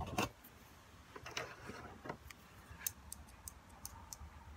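Faint, scattered light clicks and taps of a metal track pin and a tubular model-train rail being handled while the pin is pushed into the rail end.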